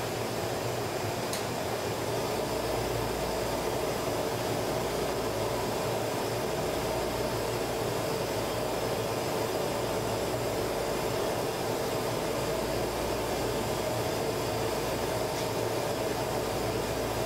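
Steady, even roar of a glass-blowing shop's equipment: gas-fired furnaces and ventilation fans running without a break.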